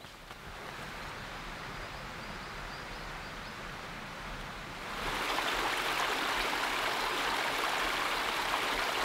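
Flowing stream, a steady rush of water that gets clearly louder about five seconds in.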